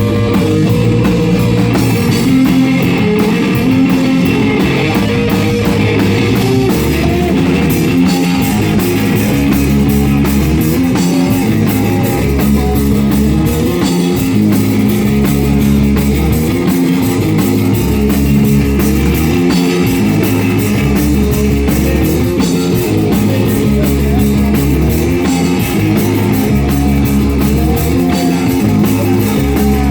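Rock band playing live: guitar over bass and a drum kit, in a steady, continuous passage.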